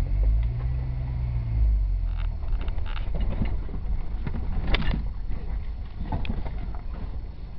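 Jeep engine rumbling at low revs while crawling over rocks, with a steadier hum in the first second or so. Several sharp knocks and rattles come through, the loudest about five seconds in.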